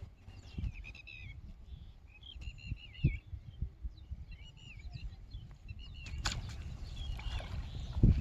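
Small birds chirping in short, repeated twittering phrases every couple of seconds, over low rumbling and scattered soft thumps, with a sharp click a couple of seconds before the end.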